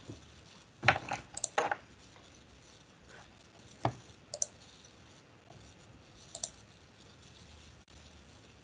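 Computer mouse clicking a handful of times: a quick cluster of clicks about a second in, then single clicks further apart, over a low room background.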